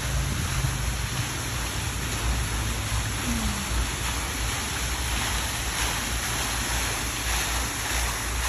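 Water splashing steadily over the basins of a tiered stone fountain: a continuous even rushing hiss.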